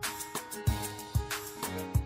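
Background music with a steady beat of about two low thumps a second under held melodic notes.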